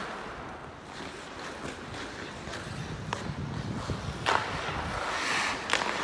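Ice skate blades gliding and scraping across rink ice, with wind rushing on the moving phone's microphone. A few sharp clacks come in the second half.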